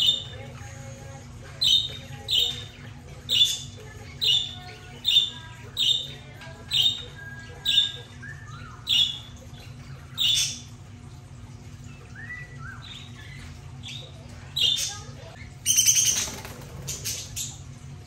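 A parrot giving a run of about ten sharp calls, evenly spaced a little under a second apart. After a pause come another call and a short burst of chattering near the end, over a steady low hum.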